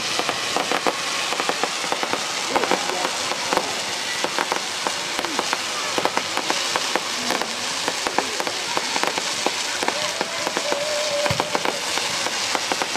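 Fireworks crackling: a dense, continuous patter of many small pops.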